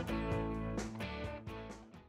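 Background music with guitar, fading out to silence near the end.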